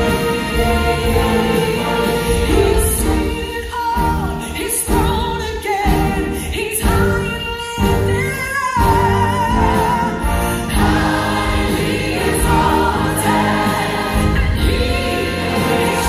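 A large church choir singing with a female soloist over instrumental accompaniment; the soloist's voice, with a clear vibrato, rises above the choir in the middle.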